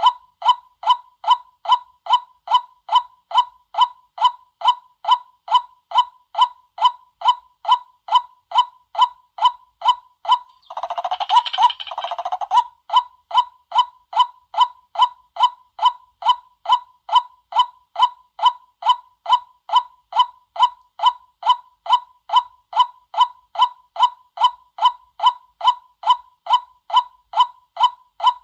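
White-breasted waterhen call used as a hunter's lure recording: a monotonous 'kwak' note repeated evenly about twice a second, with a harsher, rapid chattering burst about eleven seconds in.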